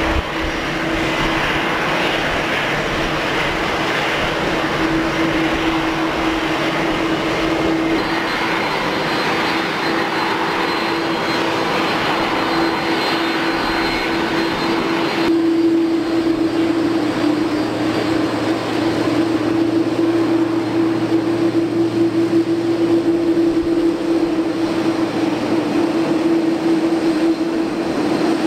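Airbus A330-200 jet engines running at low taxi thrust: a steady jet whine with one constant tone under it. The sound shifts abruptly about halfway through and gets slightly louder.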